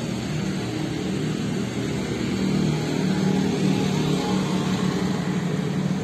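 Steady motor-vehicle engine noise with a low hum, getting a little louder about two and a half seconds in.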